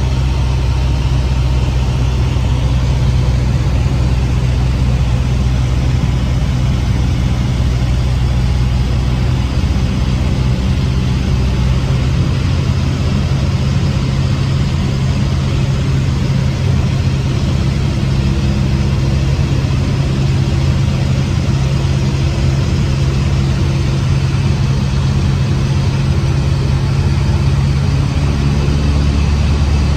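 Cessna 150's four-cylinder Continental O-200 engine and propeller droning steadily in cruise, with a rushing hiss of air over the airframe.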